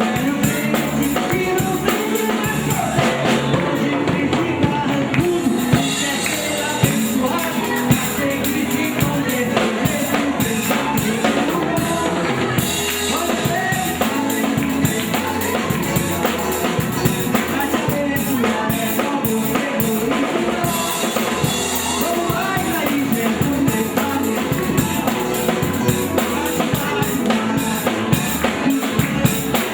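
Live band playing with a steady beat on the drum kit, together with electric guitar, bass guitar and keyboard.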